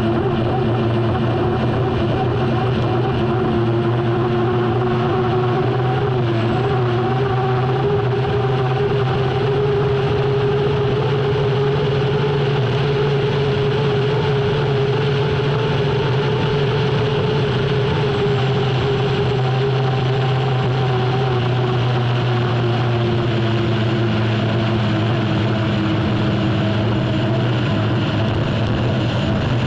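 Lycoming T55 turbine engine of an unlimited hydroplane running steadily, heard from onboard, its whine shifting only slightly in pitch and easing down a little near the end, over a constant loud rushing noise.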